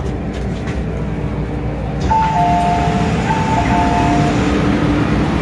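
MTR M-train running slowly and drawing to a stop at the platform. About two seconds in, an electronic door chime sounds: two falling two-note pairs, high then low, as the doors are about to open.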